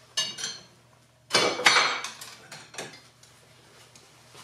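Metal hand tools clinking and clattering on a workbench as they are handled: two light, ringing clinks, then a louder clatter about a second and a half in and a smaller knock a little later.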